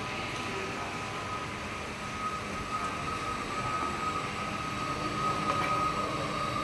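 Automatic wire-processing and soldering machine running: a steady mechanical hum with a constant high whine, getting a little louder about halfway through.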